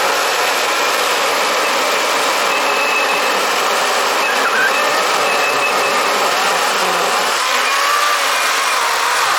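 Wild Badger 40-volt battery chainsaw running steadily under load, its chain cutting through a large, solid log. The motor's pitch shifts a little about seven seconds in.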